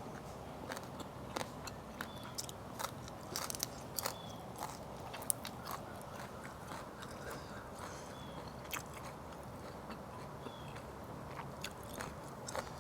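Close-miked chewing and crunchy biting, with irregular sharp crunches and mouth clicks, from someone eating fermented fish with raw vegetables such as eggplant, lemongrass, shallot and chilli.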